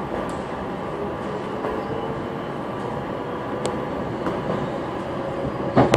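Inside a SEPTA Silverliner V electric multiple-unit railcar running along the line: a steady rumble of wheels on rail with a faint whine, a few sharp clicks, and a louder knock near the end.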